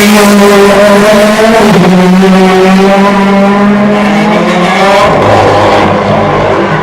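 DTM race car's 4-litre V8 running hard at high revs in a steady, loud note. The pitch steps down slightly about two seconds in, then drops sharply about five seconds in.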